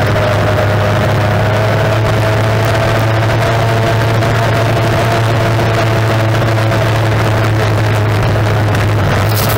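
Mercury racing outboard on a tunnel-hull race boat running flat out at a steady pitch, heard from on board over a constant rush of wind and water noise. A short burst of hiss comes near the end.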